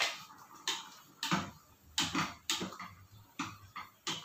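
A slotted spatula stirring a thick tomato stew in a stainless-steel pan, knocking against the pan in irregular sharp clicks about twice a second.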